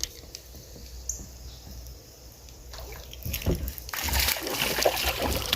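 River water splashing and sloshing, quiet at first and then louder and busier from about three seconds in.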